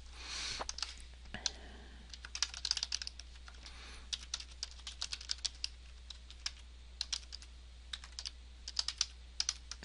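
Typing on a computer keyboard: short irregular runs of keystroke clicks, with a steady low hum underneath.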